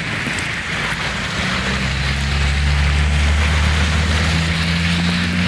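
Vehicle engine running with a steady low drone over a constant rushing noise; the drone strengthens about a second and a half in.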